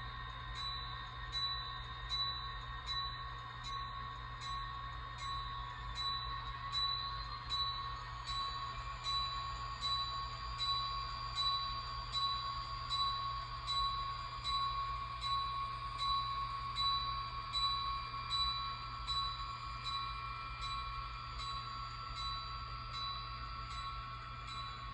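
HO scale model Santa Fe GP35u diesel locomotive's sound decoder playing its bell, ringing steadily at roughly two strokes a second over the running diesel engine sound, as the locomotive sets off.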